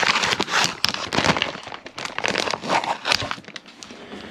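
Plastic film being peeled off a meal-kit potato tray, a run of irregular crinkles that is busiest in the first three seconds and thins toward the end.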